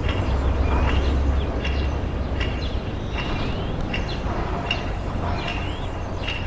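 Town ambience: a steady low rumble under small birds chirping in short calls, some rising in pitch, about one or two a second.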